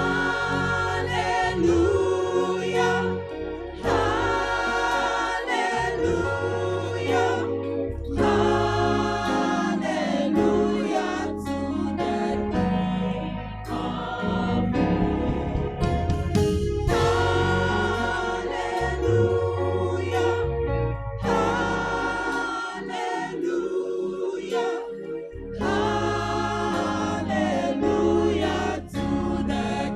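Choir singing a gospel hymn in parts, with sustained phrases over a bass line.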